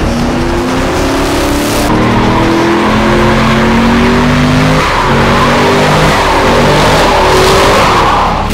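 Fifth-generation Chevrolet Camaro doing a burnout: the engine is held at high revs, its pitch stepping up and down, while the rear tires spin and squeal on asphalt. The tire squeal grows louder toward the end.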